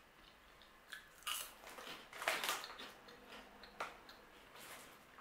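Someone chewing a crunchy puffed black-rice snack close to the microphone: a run of short, crisp crunches starting about a second in and fading out near the end.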